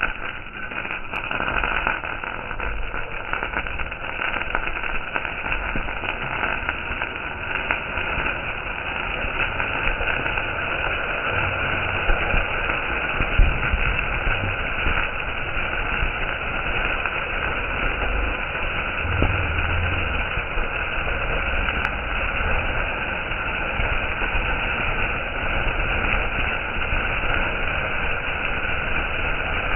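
Mayil pattasu, a peacock fountain firecracker, spraying sparks with a steady hiss that runs on without a break.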